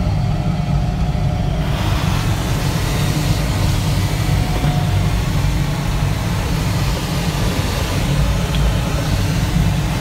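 Airflow noise in the cockpit of an ASK 21 glider in flight: a steady low rumble, with a hiss that grows louder about two seconds in and holds.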